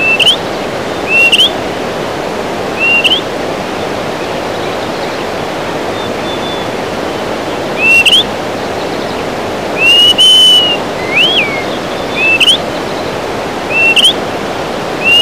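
Greater Pewee giving short, clear whistled notes that slur upward, repeated every one to two seconds, with a longer level whistle followed by a note that rises and falls about ten seconds in. A steady rushing hiss runs underneath.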